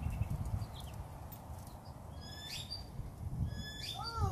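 Small birds chirping in short high calls, a cluster about two and a half seconds in and a few more near the end, over a low rumble. Just before the end a wavering cry, rising and falling in pitch, begins.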